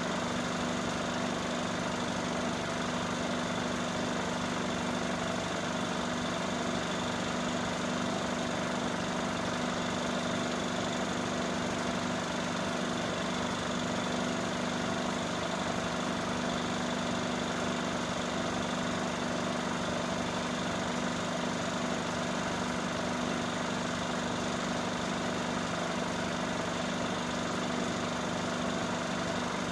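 Cine film projector running: a steady motor hum with a fast, even mechanical chatter from the film mechanism.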